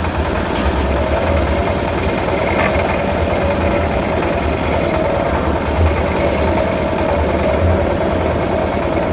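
Engine driving a circular sawmill, running steadily with a low, even throb.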